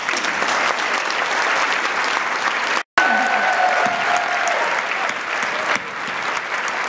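Audience applauding, steady and sustained, with a brief dropout about three seconds in.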